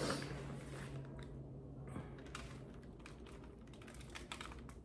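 Shredded cheese being sprinkled over tortilla chips on a foil-lined sheet pan: faint, scattered light clicks and rustles, coming thicker in the second half.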